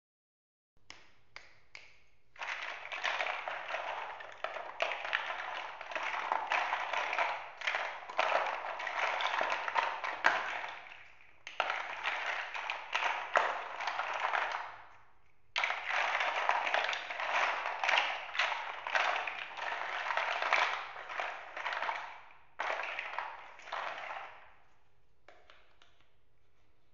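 Large hollow plastic building blocks clattering and knocking together as hands stir and shuffle a pile of them. The clatter comes in long stretches with a couple of short pauses, and thins to a few scattered clicks near the end.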